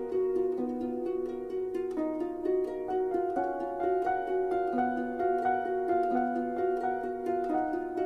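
Background music: a steady stream of short plucked-string notes, each striking sharply and ringing out, in a gentle flowing pattern.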